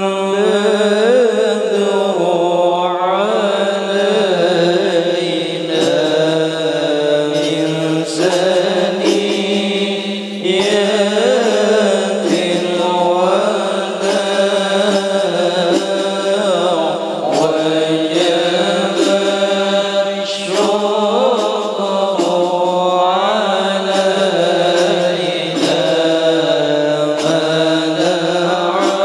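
Male voice chanting an Arabic devotional song (sya'ir) through a sound system, in long winding phrases without a break.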